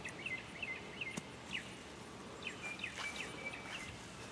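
Birds chirping in quick series of short notes over a steady outdoor background hiss, with a couple of faint clicks about one and three seconds in.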